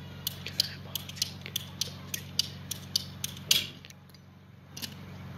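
Ratcheting PVC pipe cutter clicking as its handle is squeezed and the blade is worked into a plastic pipe, about four or five clicks a second, ending in one louder snap about three and a half seconds in.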